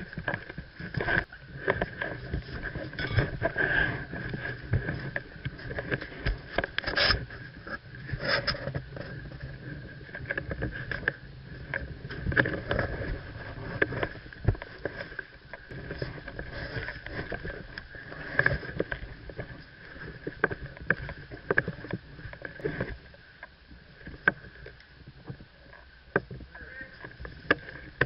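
Muffled handling noise from a camera in a waterproof housing as the player moves: irregular knocks, clicks and rubbing of gear and footsteps, over a steady faint whine. It quietens near the end.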